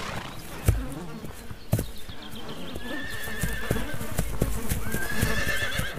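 Konik stallions striking and stamping their hooves on grassy ground as a threat to rivals, with dull thuds about a second and two seconds in. Then a horse gives high-pitched neighing calls, twice.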